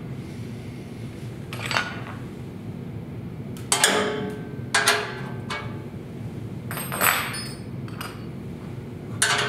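About half a dozen sharp metal clanks and knocks from tools and a screwdriver being handled against the bandsaw's steel stand and panel, over a steady low hum.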